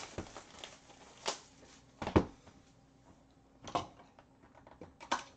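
Cardboard hockey card boxes being handled and set down on a tabletop: about five scattered knocks and thuds, the loudest about two seconds in.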